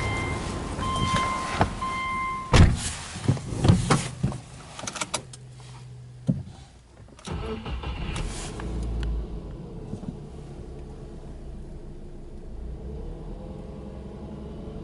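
Subaru Legacy B4 2.0i's flat-four boxer engine being started from cold about halfway through, then settling into a steady fast idle around 1,200 rpm. Before the start there are short electronic beeps and then several loud knocks.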